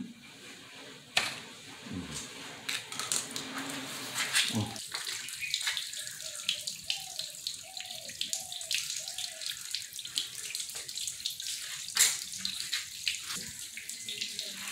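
Water from a garden hose pouring into a motorcycle's coolant overflow tank to flush it, splashing and spilling onto the floor. Before the water takes over, a few sharp clicks of metal pliers working a hose clamp.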